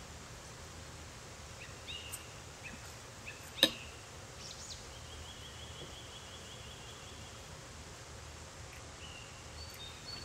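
Quiet eating sounds: one sharp click about a third of the way in, over a low steady hum. Faint high chirps and a short high trill sound in the background.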